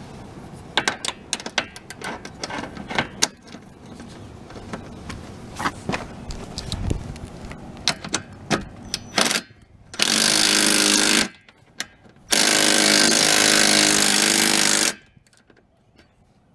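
Metal clinks and taps as bolts and nylock nuts are fitted into aluminium solar-panel tilt brackets, then a handheld power driver runs twice, about a second and then about two and a half seconds, tightening the nuts.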